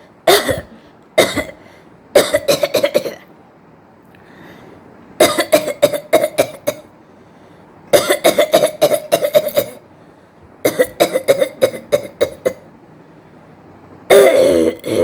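A woman coughing on purpose in repeated fits: two single coughs, then strings of quick short coughs, each string lasting one to two seconds, with short pauses between.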